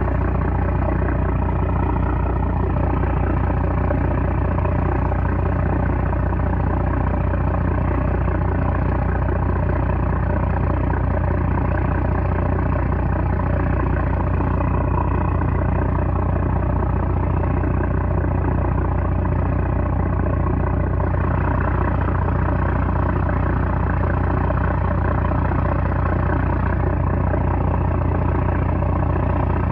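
A small trawler's 330-horsepower diesel engine running steadily, a loud, even drone with a strong low hum and no change in pace.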